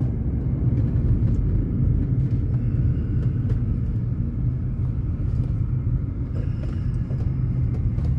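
Steady low rumble of engine and tyre noise heard from inside a Honda Element's cabin as it drives along, with a few faint clicks.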